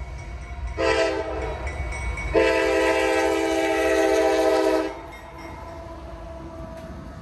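Locomotive air horn of a CSX GE CW44AH sounding a short blast and then a long blast over the low rumble of the train, the closing short and long of a grade-crossing horn signal.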